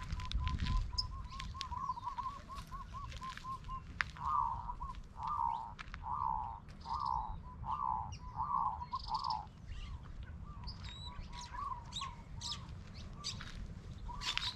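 A bird calling a long series of repeated notes, quick and soft at first, then about seven louder, slower notes in a row, then trailing off into quick notes again. Other small birds chirp higher up.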